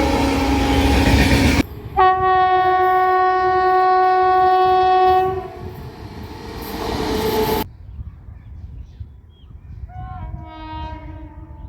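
Indian Railways locomotive horns in quick succession. The opening is a horn over loud passing-train rumble, then a single long, loud horn blast lasting about three and a half seconds and fading out. After a break, a fainter horn sounds near the end.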